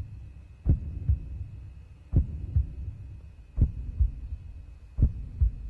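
Slow heartbeat: a double lub-dub thump four times, about every one and a half seconds, over a low hum and a faint steady high whine.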